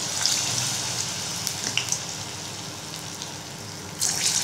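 Balls of wheat-flour bonda batter deep-frying in hot oil in a kadai: a steady sizzle that swells near the end as another ball of batter drops into the oil.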